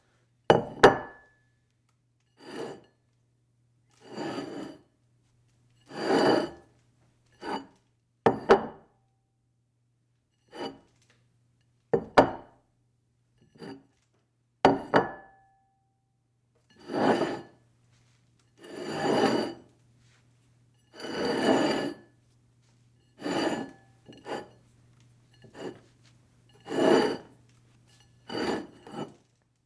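A dish slid across a table over and over, in about eighteen separate strokes with pauses between: some are scrapes lasting up to about a second and a half, others are short knocks or clinks that leave a brief ringing tone.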